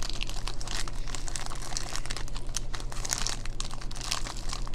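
Plastic snack wrapper crinkling and crackling, handled and torn open.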